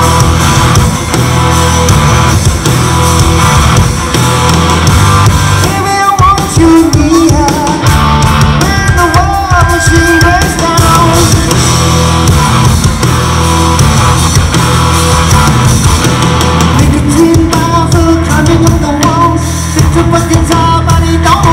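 Rock band playing live through a PA: electric guitars, bass guitar and drum kit, with a male lead vocal.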